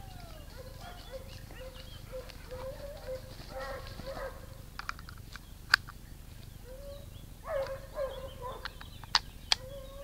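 Hunting dogs barking and yelping in short repeated cries, in bursts about four seconds in and again near the end, with a few sharp clicks in between.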